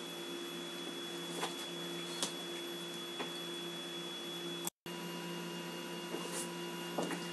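Faint steady electrical hum with a thin high whine, broken by a few small clicks and taps, and cutting out for a moment near the middle.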